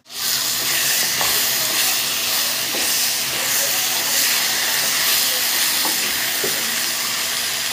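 Steady sizzling hiss of food frying in hot fat in a pot on the stove, with a few faint light clicks.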